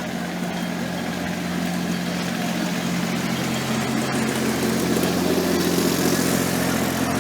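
A steady, unchanging engine hum, like a motor idling at constant speed, over general street noise.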